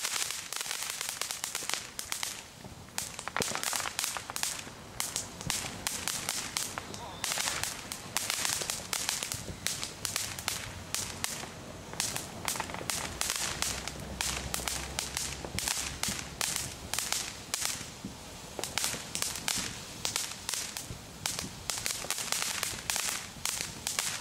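Firework fountain spraying sparks and coloured stars: a steady hiss under dense, rapid crackling pops.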